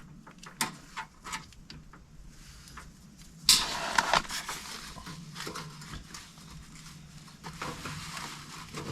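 Scattered light clicks and taps of hands handling multimeter test leads at a blower motor run capacitor, with a louder scraping rustle about three and a half seconds in.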